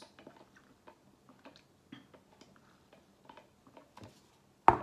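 Small irregular mouth clicks and swallows while sipping Fanta through a straw from a paper cup, then one sharp knock near the end as the cup is set down on the table.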